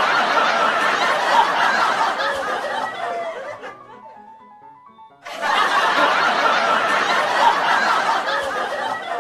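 Canned audience laughter, a crowd laughing for about four seconds and fading away. The same laugh clip then starts again abruptly about five seconds in.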